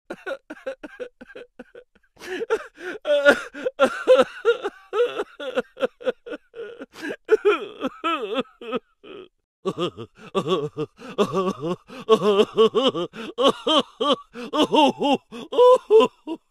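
A high-pitched, cartoon-like laughing voice sound effect: rapid short giggling syllables with quickly swooping pitch, softer for the first couple of seconds, then louder, with a brief pause about halfway through.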